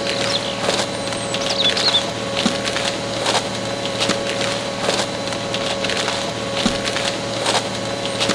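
Small electric motor of a toy drilling vehicle running steadily as its cone-shaped screw drill bit turns into sand. A steady hum is broken by a sharp click or crackle about every second.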